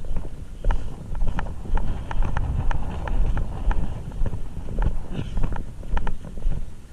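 Running footsteps, about three a second, each with a dull thump and a light knock of jostling gear, with wind buffeting the microphone.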